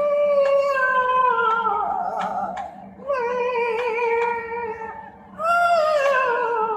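A cat-yowling ringtone: three long, wavering meows, each sliding down in pitch. They start at the beginning, about three seconds in and about five and a half seconds in.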